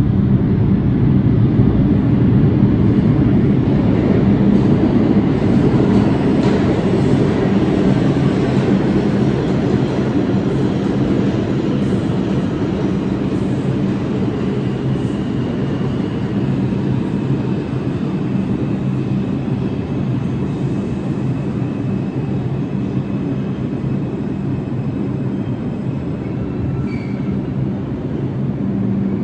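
New York City subway train on the Lexington Avenue Line running past on the express track: a loud, steady rumble of wheels and motors on the rails. A faint high whine comes in partway through.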